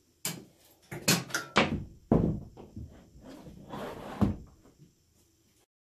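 A 32-inch flatscreen TV knocking and bumping against a wooden wall mount and the wall as it is lifted and hung. There is a series of separate thuds and clatters, the loudest about two seconds in.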